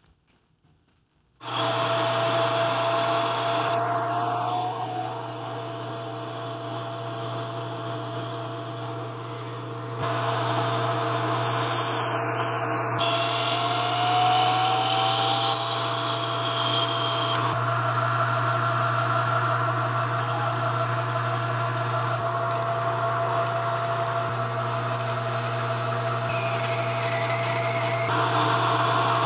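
Metal lathe running, turning and then drilling a stainless steel nozzle part: a steady motor hum under the noise of the cut. It starts abruptly about a second and a half in and shifts in tone several times.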